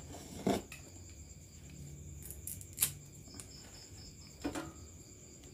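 A few faint clicks and a soft thump as a battery is touched to a 15-inch loudspeaker's leads to check its polarity. Crickets chirp steadily over it.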